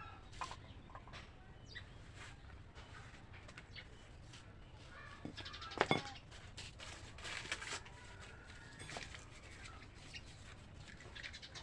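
Scattered clicks and knocks, the loudest about six seconds in, with short calls of birds in the background.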